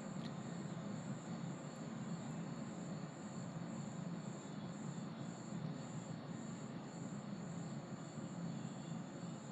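Metal electric kettle heating water toward the boil: a steady low rumbling hiss. A high, even chirp repeats about two to three times a second throughout.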